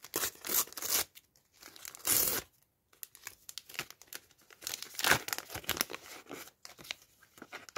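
A paper sticker packet being torn open by hand, with two longer rips in the first few seconds. Then the wrapper crinkles and rustles as the stickers are pulled out.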